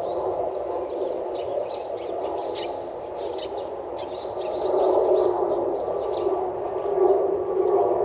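Small birds chirping rapidly, many short calls a second, busiest in the middle, over a steady rushing background noise.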